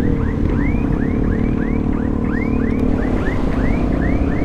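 An electronic alarm chirps in quick rising sweeps, about four a second, over the steady running of a Vespa scooter's engine in slow traffic.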